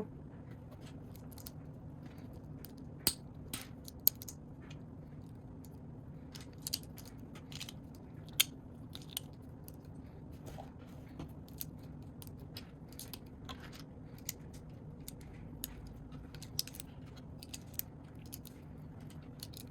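Plastic Lego bricks clicking and snapping as pieces are handled and pressed together, in irregular sharp clicks, a few of them louder, over a steady low hum.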